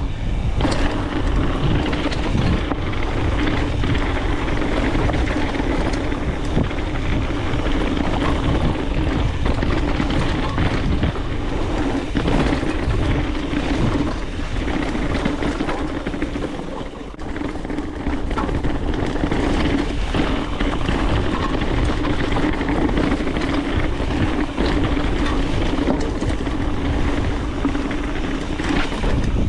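Wind rushing over the camera microphone with the rolling noise and rattle of a mountain bike descending a dirt trail, easing off briefly a little past halfway.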